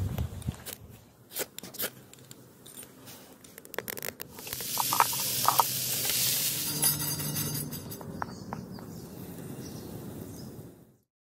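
Diced potatoes and vegetables sizzling in a frying pan over a wood fire. The sizzle comes in loud about four and a half seconds in and eases after about seven seconds. Before it there are scattered light clicks and knocks, and the sound cuts off suddenly just before the end.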